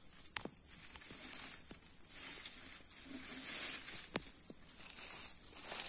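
Steady high-pitched drone of insects, with a few light clicks and rustles scattered through it.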